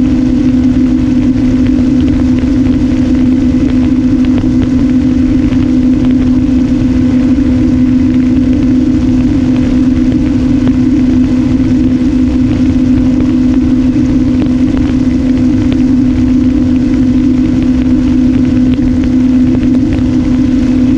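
Electric motor and propeller of an RMRC Strix Strato-Surfer flying wing in flight, droning at one steady pitch at constant cruise throttle. Low wind rumble on the GoPro's microphone rides underneath.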